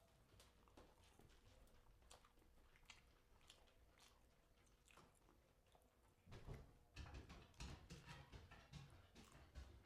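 A person chewing food with the mouth close to the microphone, wet mouth clicks and crunches. Faint at first, then louder and more continuous from about six seconds in.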